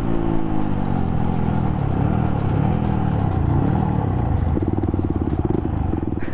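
CFMoto NK250 single-cylinder motorcycle engine heard from the rider's seat, its revs dropping as the bike slows. The engine note then rises and falls a few times, settling into a steady low pulsing near the end.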